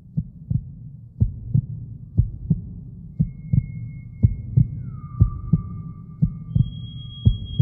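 Heartbeat sound effect: low double thumps, lub-dub, about once a second. From about three seconds in, thin high steady tones join it, one sliding down in pitch before it settles.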